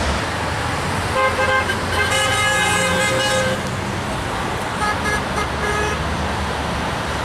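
Car horns honking from passing road traffic, the honks given in support of roadside protesters: short toots about a second in, a longer blast of about a second and a half, then a few more short toots, over the steady noise of passing vehicles.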